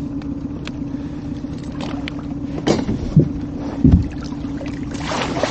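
A steady hum runs under a few knocks against the boat's metal hull. Near the end, water splashes as a landing net is worked at the boat's side to lift out a large pike.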